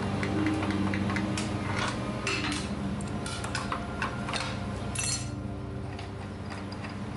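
Steel wrenches clinking and clicking against steel bolts and brackets as bolts are fitted and tightened by hand: a string of irregular, sharp metallic clinks.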